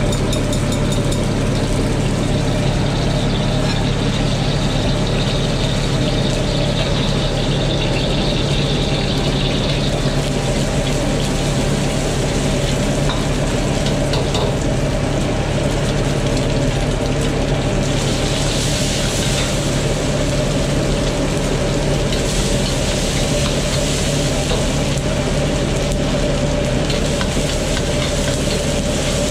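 Steady hum of a commercial wok stove's gas burner and blower, with egg frying in hot oil in a wok and a spatula stirring. The sizzling gets louder about two-thirds of the way through.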